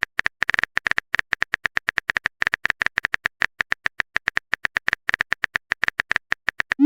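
Phone keyboard typing sound effect: rapid, slightly uneven key clicks, about ten a second, ending in a short rising pop.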